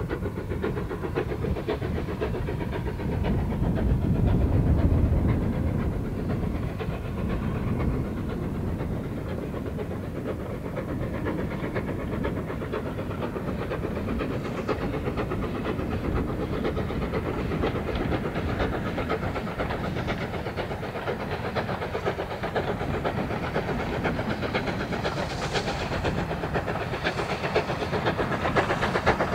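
GWR Small Prairie 2-6-2 tank engine No. 4555 working a passenger train under steam, its exhaust beats coming in a rapid, even rhythm that grows a little louder and sharper near the end as it draws close.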